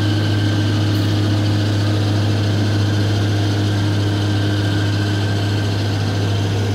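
JCB tracked excavator's diesel engine running steadily with a low, even hum as the machine is driven off a low-bed trailer.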